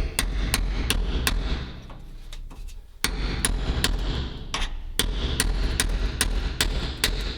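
Hammer blows, about three a second: a short run, a pause of about a second and a half, then a longer steady run of strikes.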